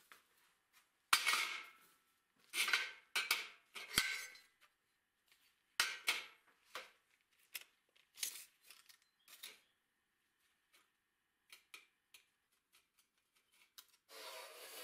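Short lengths of steel profile pipe clanking and scraping as they are set down and shifted on a slatted steel table, several sharp metallic knocks over the first ten seconds, then a few light clicks and taps. Near the end a metal-cutting band saw starts running with a steady even noise.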